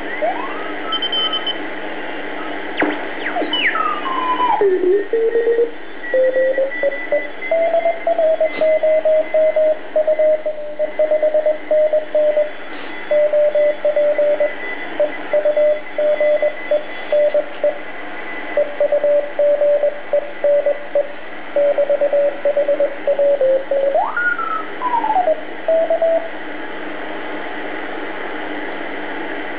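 BC-312G shortwave receiver picking up a Morse code signal: a single steady beat-note tone keyed on and off in short and long elements over band hiss. Whistles glide up and down in pitch as the dial is tuned near the start and again near the end.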